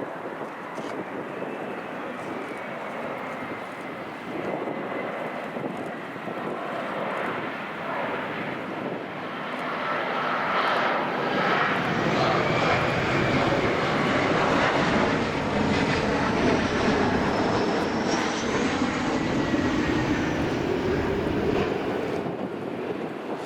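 Jet airliner passing close by, its engine noise swelling from about ten seconds in to a peak, with a high turbine whine that glides in pitch as it passes. Wind buffets the microphone.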